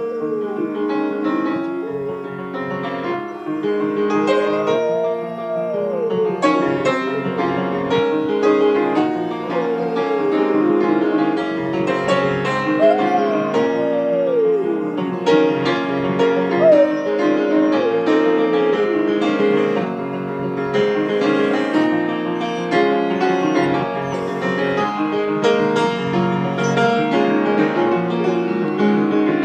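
Great Pyrenees dog howling along to a piano being played, with several long howls that rise and fall in pitch over the piano notes. By the owner's account this is the dog's response to the music, not a sign of pain.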